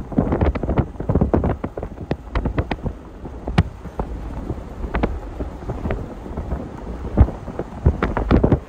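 Low rumble of wind buffeting the microphone, with many irregular sharp clicks and taps throughout.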